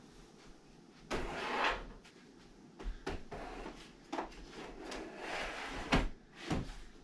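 Small plastic drawer organizers being handled and set onto shelves: a scraping slide about a second in, then several sharp plastic clacks and knocks.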